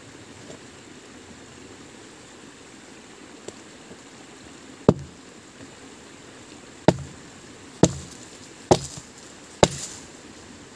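Five sharp blows on wood: a first one about halfway through, then four more about a second apart, each with a short low after-ring.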